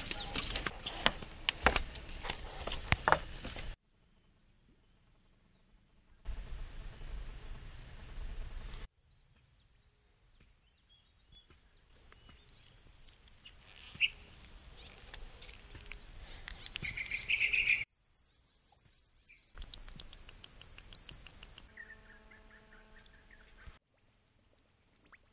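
Footsteps knocking on a wooden boardwalk, irregular, for the first few seconds. Then a string of short cuts of quiet outdoor ambience with a steady high insect hum and a few bird chirps; some stretches are almost silent.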